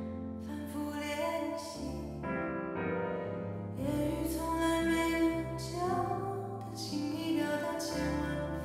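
A woman singing a ballad into a microphone with instrumental backing, holding long notes and sliding between them.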